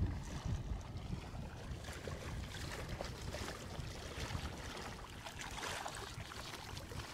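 Wind rumbling on the microphone over water lapping and splashing close by, with a crackle of small splashes from about two seconds in.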